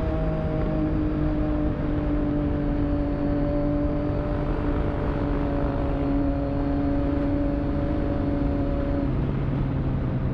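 Motorcycle engine running at a steady cruise with heavy wind noise, its pitch sinking slowly as it eases off, then dropping lower about nine seconds in.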